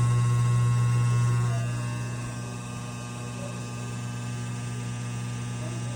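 Steady electric hum with a strong low tone and many overtones. It drops in level about two seconds in and then holds steady.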